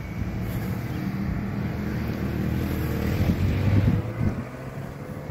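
A car driving past on the street: a low engine and tyre hum that grows, is loudest about three to four seconds in, then fades. Some wind on the microphone.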